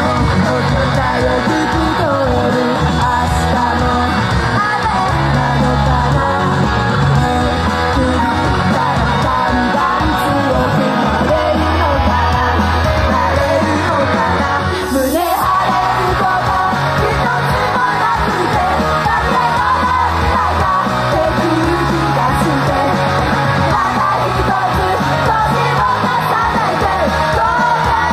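Idol pop-rock song performed live in a hall: female vocals singing over a loud band backing, with shouting voices. About halfway through, the music drops out briefly with a falling sweep, then comes back in.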